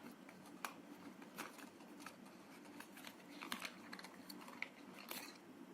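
Faint rustling and a few light clicks of paper and plastic packaging being handled, the sounds of unpacking the box contents.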